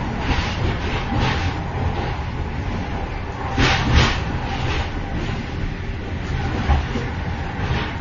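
Moving train heard from inside the vestibule between carriages: a steady low rumble with rattling and clatter, and a louder burst of clatter with two sharp knocks about halfway through.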